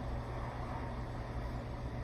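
A steady low hum under a faint even background noise, with no distinct event.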